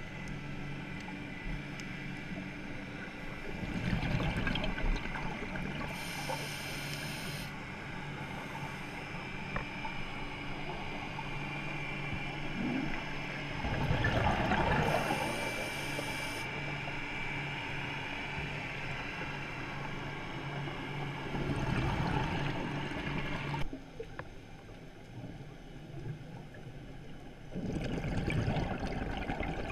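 Underwater sound of a scuba diver breathing through a regulator, heard through a camera's waterproof housing: four surges of exhaled bubbles several seconds apart, between brief hisses of inhaled air, over a steady low hum.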